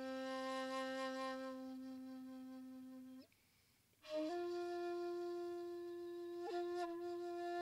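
Shakuhachi, an end-blown bamboo flute, playing a slow solo. A long held low note ends about three seconds in, and after a short breath a new phrase starts with a breathy attack, touches a high note briefly and settles on a higher held note, with two quick ornamental flicks near the end.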